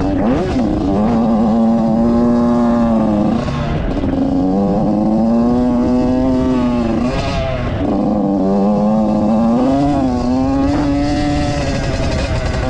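Yamaha YZ85's two-stroke single-cylinder engine being ridden hard, its pitch climbing, holding and falling with the throttle. The note drops sharply about three and a half and seven and a half seconds in, then builds again.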